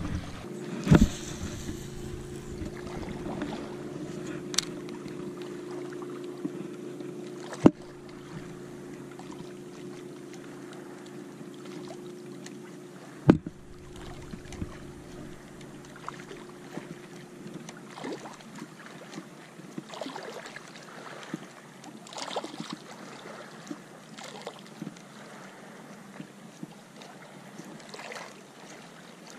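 A steady low engine hum that fades out past the middle, over light lapping-water and wind noise, with a few sharp knocks.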